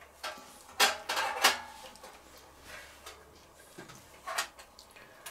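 Metal skewer clinking and scraping against a stainless steel bowl as chunks of marinated meat are pushed onto it, with a few sharp clinks in the first second and a half and another near the end.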